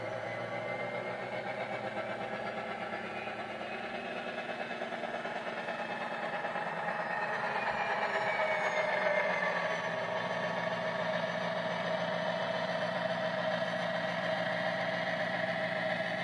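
Model Class 57 diesel locomotive's ESU LokSound decoder playing diesel engine sound through a small EM1 speaker, running steadily. It gets louder about halfway through.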